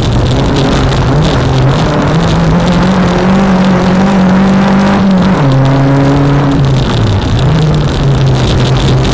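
Renault Clio 1.8 16v four-cylinder engine at full racing effort, heard from inside the stripped cabin. It revs steadily higher for several seconds, drops sharply about five seconds in, dips once more near the seven-second mark and picks back up, over a constant rush of tyre and road noise from the loose dirt.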